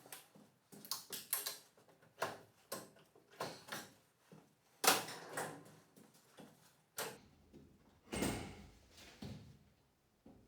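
Irregular metal clunks and knocks as a Polaris Predator 500 ATV engine is worked out of its frame, catching against the frame and a mount. The loudest knock comes about five seconds in, and a heavier, deeper thud follows near the end.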